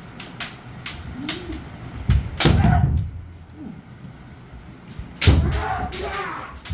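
Kendo sparring: bamboo shinai tap and clack against each other in sharp clicks. About two seconds in and again about five seconds in comes a loud attack, a sharp strike with a thud on the wooden floor followed by a drawn-out shout (kiai).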